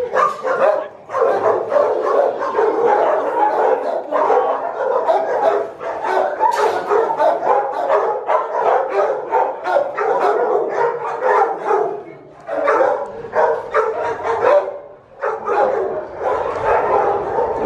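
Several kennelled shelter dogs barking almost without a break, with two short lulls about twelve and fourteen and a half seconds in.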